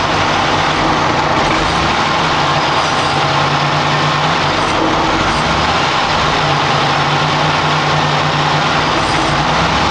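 Chevrolet Celebrity engine running steadily with its throttle position sensor unplugged. The car has begun to stumble whenever the throttle is pressed, a fault the owner thinks might be the throttle position sensor.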